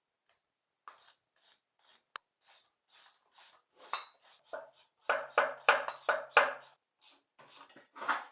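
Bolts being run in with a hand ratchet: a series of short rasping strokes, about three a second, growing louder about five seconds in.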